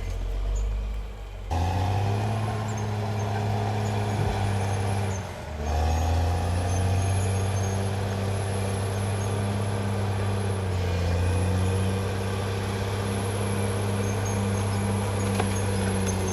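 Caterpillar D6R XL bulldozer's diesel engine running. Its note is low for the first second and a half, then picks up, dips briefly about five seconds in, and runs steadily after that.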